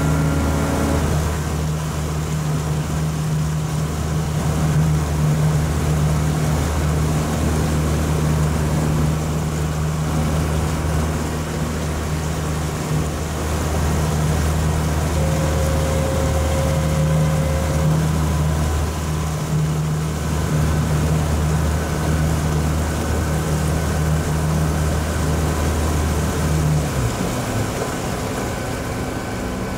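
Boat engine running at a steady speed, a continuous low hum with a wash of water and wind noise over it. The low hum drops away about 27 seconds in, as if the engine is throttled back.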